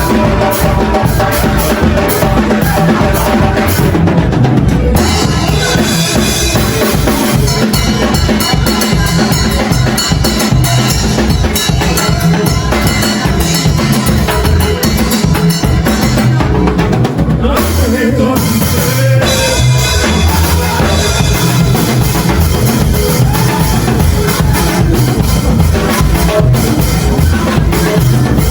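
Worship band music driven by a drum kit, with kick drum and snare keeping a steady beat under dense instrumental backing.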